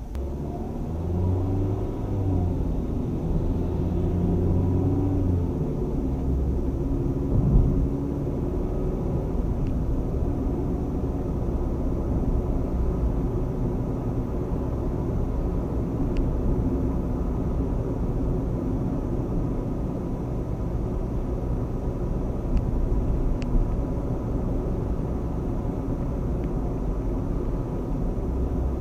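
Car engine and tyre road noise heard from inside the cabin. The engine note climbs in steps over the first five seconds as the car accelerates away, then settles into steady cruising noise. A single thump comes about seven and a half seconds in.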